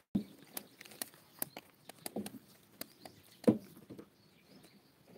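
A puppy moving about on a woven mat right by the phone: irregular soft clicks, scuffs and thumps, with one louder knock about three and a half seconds in.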